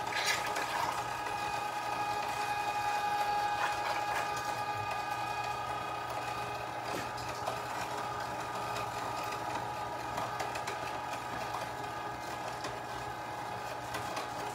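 1 HP Carnivore electric meat grinder running steadily while grinding raw meat: a constant motor hum and whine, with a few faint clicks.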